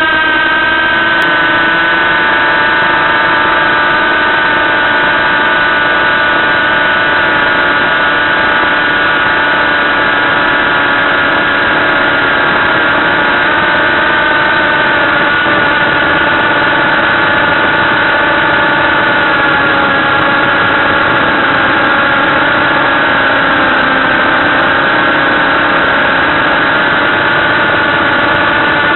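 Brushless motors and propellers of a ProGo-280 quadcopter whining steadily in cruising flight, one pitch drifting slightly with throttle.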